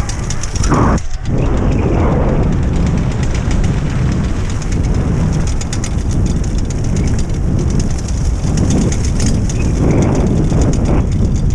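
Wind rushing over the microphone and a dog-racing rig's wheels rolling and rattling over a rough forest track while a husky team pulls it at speed: a loud steady rumble with a fast clatter of ticks above it.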